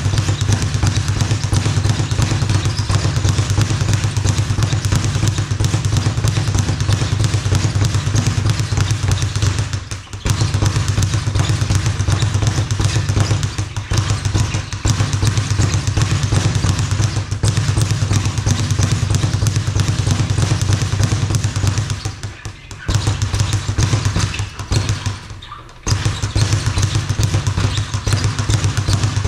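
Speed bag punched in a rapid, continuous rhythm, the bag rattling against the rebound board. The drumming breaks off briefly about ten seconds in and twice more in the last third.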